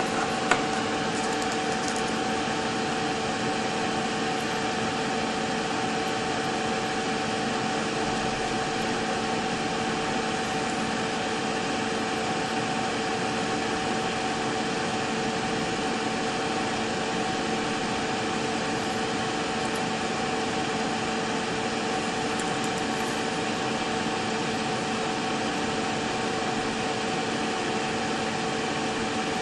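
Steady machine hum with hiss, holding a few constant tones and never changing, with a single sharp click about half a second in.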